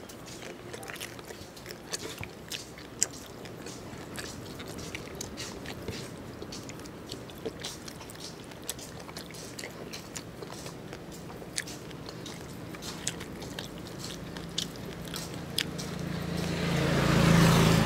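Close-miked eating sounds: a person chewing braised lechon pork and rice, with many wet mouth clicks and smacks. Near the end a passing vehicle swells up and becomes the loudest sound.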